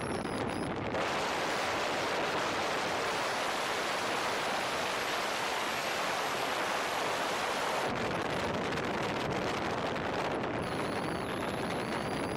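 Steady rush of wind over a camera microphone mounted on a moving car's bonnet, mixed with tyre and road noise; the low rumble eases slightly about eight seconds in.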